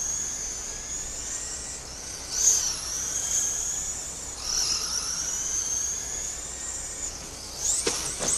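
Electric motors of radio-controlled race cars whining, the pitch rising and falling again and again as the cars accelerate and slow around the track. Near the end one car passes close by in a quick up-and-down sweep with a brief clatter.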